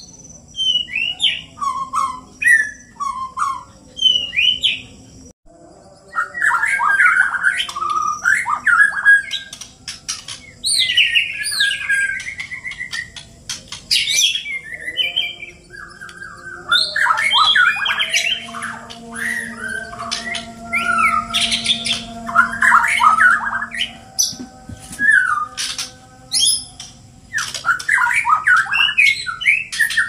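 White-rumped shamas (murai batu) singing against each other: dense runs of fast whistled notes, slurred glides and chirps, mixed with harsh rasping calls, in bursts separated by short pauses.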